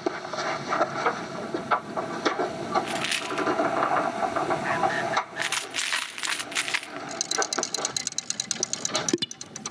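A dense run of film sound effects: many short clicks, knocks and clatters in quick succession, busiest in the middle.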